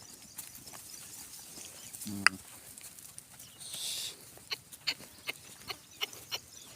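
Draft horses at a farm: a short low call about two seconds in, a brief breathy hiss, then a run of sharp knocks about two and a half a second, in the manner of hooves on hard ground.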